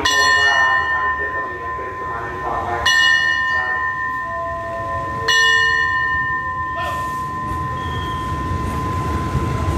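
Railway station bell struck three times, a few seconds apart, each stroke ringing on long after it is struck: the station's departure signal for the waiting train.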